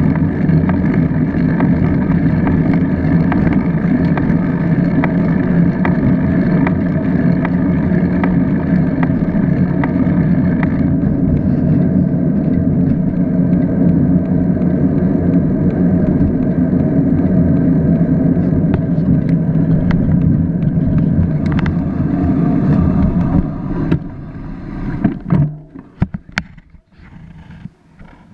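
Steady, loud rush of wind and road noise from a handlebar-mounted action camera on a moving bicycle. It falls away as the bike comes to a stop, followed by a few sharp clicks and knocks.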